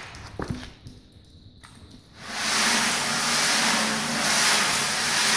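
Media (wood screws, stones and sandblasting grit) churning inside a rotating 270-litre steel compressor tank on a home-made, wiper-motor-driven tumbler: a steady rushing noise that sets in about two seconds in, after a few light clicks of handling.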